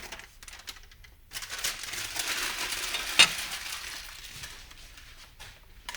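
Rustling and handling of parts on a workbench, a crinkly scraping that runs for a couple of seconds with one sharp click about three seconds in.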